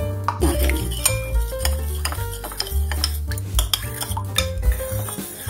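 A spoon stirring thin liquid sauce in a ceramic bowl, clinking repeatedly against the side of the bowl, over steady background music.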